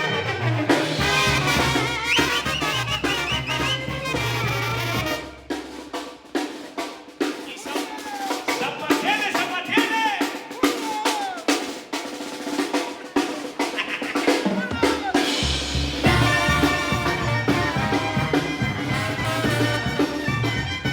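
Mexican banda playing live, with brass and drums. About five seconds in the low bass drops out, leaving mostly drum hits and higher lines, and the full band returns about fifteen seconds in.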